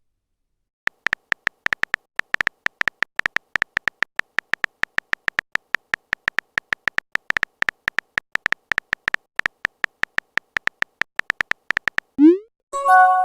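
Chat-story typing sound effect: a fast, uneven stream of short electronic beeps at one pitch, like letters being typed out. Near the end comes a quick rising pop, then a short electronic chime of a few tones.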